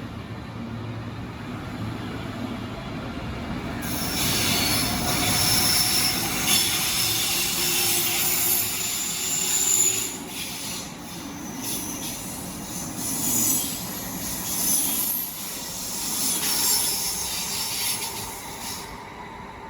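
Railway wheels squealing on the rails as a train runs slowly past, over a low rumble; the high-pitched squeal sets in about four seconds in, swells and fades in waves, and dies away near the end.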